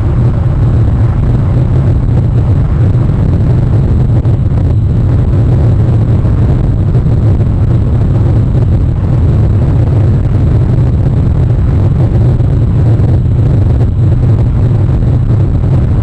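Steady, loud low rumble with a hiss above it, unbroken and without distinct calls or knocks: wind buffeting an outdoor webcam microphone.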